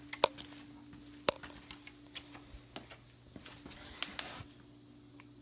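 Hands working on parts and tools: two sharp clicks about a second apart, then scattered lighter ticks and a brief rustle about four seconds in, over a steady low hum.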